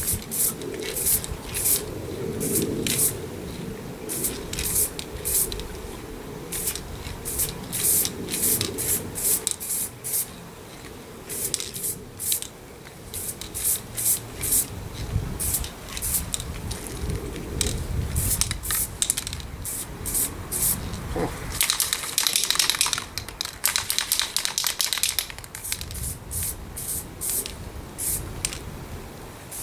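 Aerosol can of spray primer hissing in many short bursts, with one longer spray of a few seconds past the middle. Wind rumbles on the microphone underneath.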